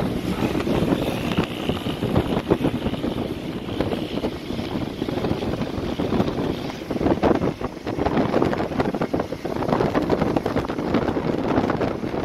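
Wind buffeting the microphone over the road noise of a moving car: an uneven rushing noise, heaviest in the low range.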